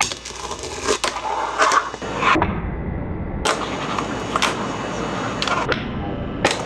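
Fingerboard tricks on a desktop: sharp clicks of the small board popping and landing on the wooden table, with the trucks grinding and sliding along a small ledge. About nine clicks come at uneven intervals over a steady hiss.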